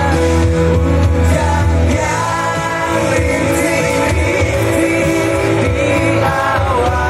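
A pop-rock band playing, with a singing voice carrying a melody over a steady bass.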